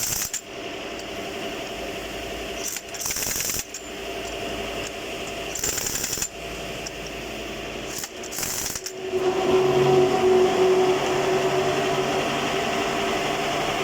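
Pneumatic impact wrench rattling in four short bursts on truck wheel nuts, over a steady machine hum that grows louder about nine seconds in.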